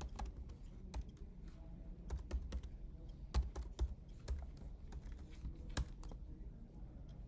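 Typing on a computer keyboard: irregular key clicks, with a few louder keystrokes among them.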